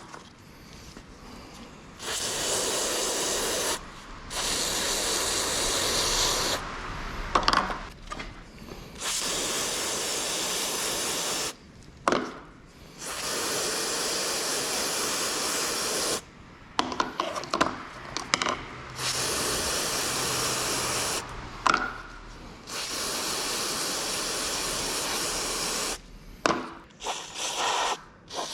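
Aerosol brake parts cleaner spraying in repeated bursts of steady hiss, each two to three seconds long and stopping sharply, with clicks and knocks of tools and parts in the gaps.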